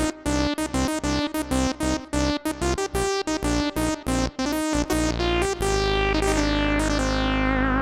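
Sequential OB-6 analog polysynth playing a preset: a quick run of short notes, each bright at the attack and quickly darkening, then about five seconds in a held chord that sustains with a slight wobble.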